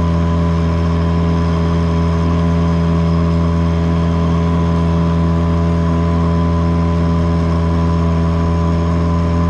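Yamaha 5 hp outboard motor running steadily at full throttle, a loud, even drone whose pitch does not change.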